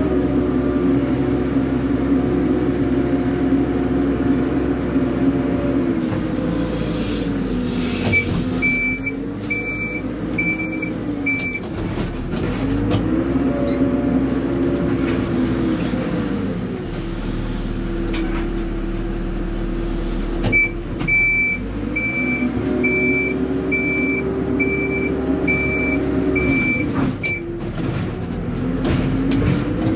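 Hidromek HMK 102S backhoe loader's diesel engine, heard from inside the cab, revving up and dropping back again and again as the hydraulic front loader arm is worked. In two spells a reversing alarm beeps steadily, about one and a half beeps a second, signalling that the machine is backing up.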